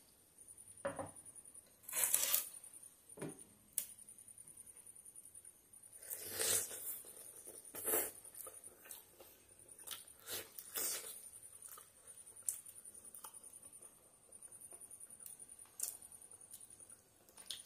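Close-miked mukbang eating sounds: fingers squishing rice and chicken curry on a steel plate and mouth chewing, a string of soft wet clicks and smacks, with louder clusters about two seconds in, around six to eight seconds and around ten to eleven seconds.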